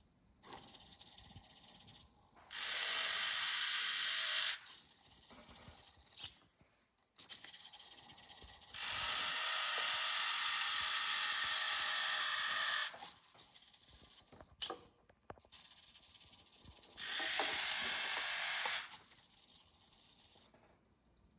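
Small hobby servo motors of a desktop robot arm whirring through their gears in stretches as the arm moves, three louder stretches of a few seconds each with quieter whirring between. A few sharp clicks fall in the pauses, the strongest about two-thirds of the way through.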